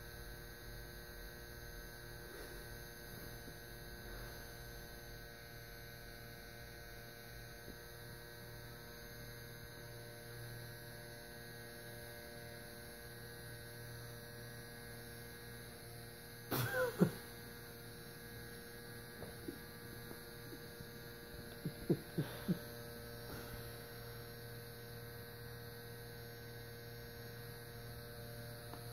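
Small electric nail file buzzing with a steady hum. A short cluster of knocks a little past halfway and a few quick clicks a few seconds later.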